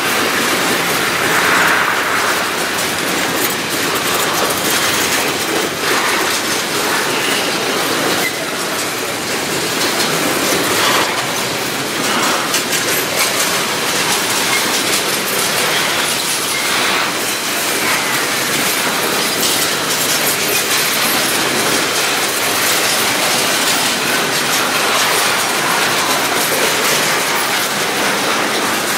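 Double-stack intermodal well cars rolling past close by: a steady loud rush of steel wheels on rail, with scattered clicks and clanks from the cars and wheels.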